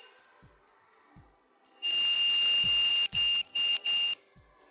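Drill press with a center drill bit cutting into a small aluminum cube: a high, steady squeal over hiss starting about two seconds in and lasting just over a second, then three short squeals as the bit is pecked in and out. Soft low thumps sound now and then.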